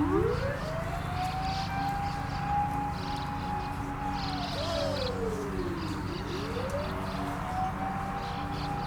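Emergency vehicle siren wailing in slow cycles: its pitch rises, holds steady for about two and a half seconds, falls away, then rises again and holds near the end.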